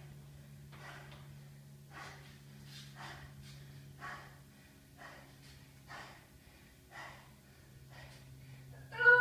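A person breathing hard, about one breath a second, winded from an intense workout, over a steady low hum. Right at the end a loud voiced cry falling in pitch cuts in.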